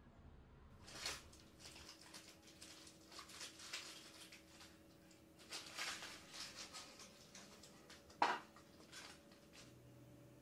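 Rustling and crinkling as paper and a plastic sheet are handled on a floor, starting about a second in. A sharp knock a little after eight seconds in, as a small wooden box is set down, is the loudest sound.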